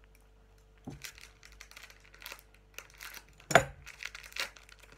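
Small plastic wrapper crinkling as a surprise keychain is pulled out of it: a string of irregular crackles, with one sharp loud crackle about three and a half seconds in.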